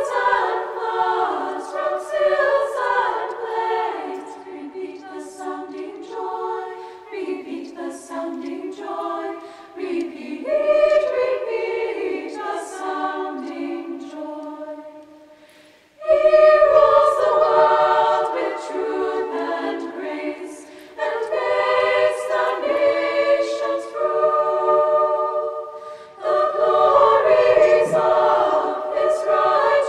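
Background music of a choir singing. About halfway through, one piece fades out and another starts suddenly.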